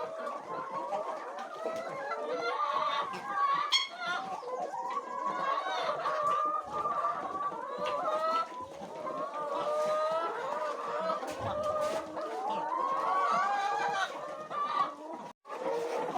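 A flock of laying hens clucking, many calls overlapping continuously. The sound cuts out for a moment near the end.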